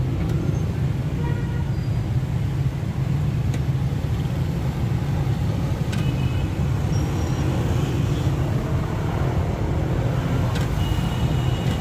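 Steady low rumble of road traffic, with a few faint short tones over it.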